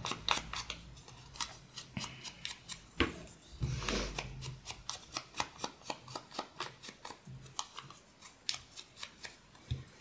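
Ink blending tool being dabbed and rubbed onto the edge of a small paper scrap, a rapid uneven run of light, sharp taps and scuffs, about two or three a second.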